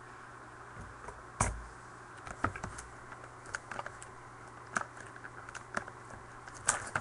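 Scattered light clicks and taps, with a soft thump about a second and a half in: scissors and sealed card boxes being handled as the case is opened, over a low steady hum.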